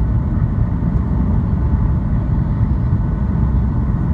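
Boeing 737 cabin noise in flight: a steady, even rumble of jet engines and airflow, heaviest in the low end, with a faint steady whine above it.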